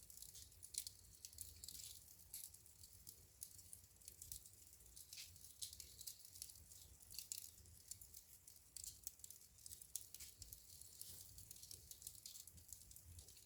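Burning wood in a fireplace crackling quietly: irregular sharp pops and snaps over a low, steady rumble.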